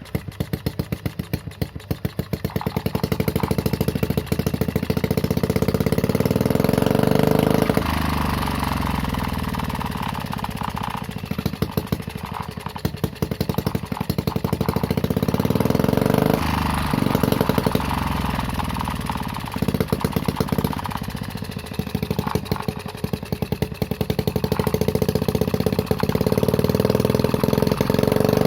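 Homemade mini four-stroke engine running through its exhaust, idling with distinct firing pulses at first, then revved up and let back down to idle several times.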